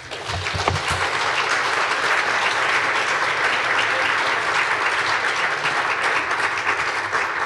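Audience applause, swelling within the first second and then holding steady.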